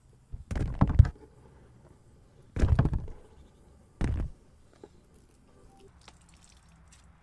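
Halved sour oranges being handled and dropped into a plastic tub: three short bursts of knocks and thuds in the first four seconds or so, then only faint rustling.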